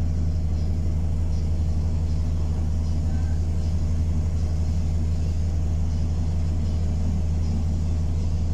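Bus engine running with a steady low drone, heard from inside the passenger saloon.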